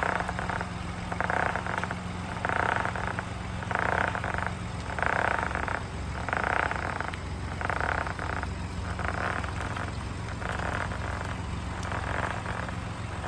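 Abnormal noise from a car tyre: a burst of noise that comes back regularly, about every 1.3 seconds, over a steady low hum. The tyre is not rubbing on anything and the drivetrain is not the cause.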